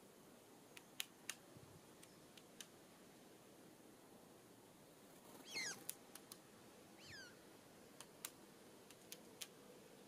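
Songbirds at a seed-block feeder: scattered sharp taps and two short, downward-sliding bird calls a little past the middle, over a faint, quiet background.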